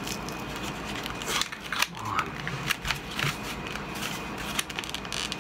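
Plastic blister packaging of a Pokémon trading card pack being worked at by hand to get it open, crinkling and crackling with irregular snaps and rustles.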